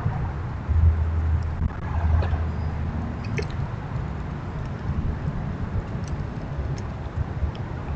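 Steady low outdoor rumble on a trail camera's microphone, with a low hum from about one to three seconds in and a few faint, scattered high clicks.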